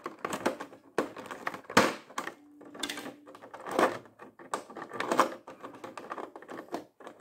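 Fingers picking small parts out of a clear plastic blister tray: irregular plastic clicks and crackles.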